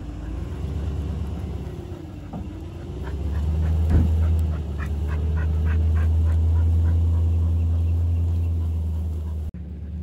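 Pickup truck engine running with a steady low rumble, its pitch wavering up and down.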